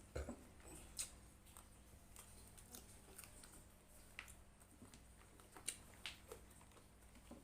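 Faint eating sounds over a low steady hum: a handful of small, sharp clicks and smacks from a person eating, spread out at irregular intervals.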